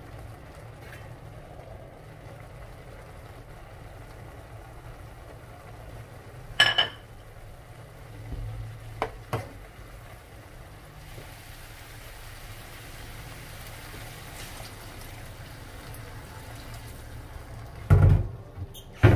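Chicken and vegetables simmering in a frying pan, a steady low hiss and hum, with a metal spoon knocking against the pan a few times; the loudest knocks come near the end.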